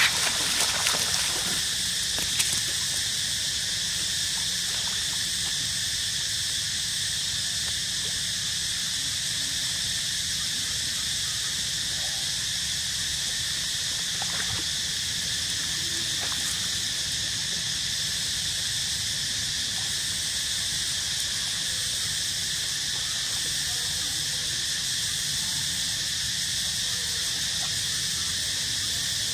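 Steady, high-pitched drone of a tropical forest insect chorus, several shrill layers holding unchanged throughout. A few short clicks and squeaks come in the first couple of seconds.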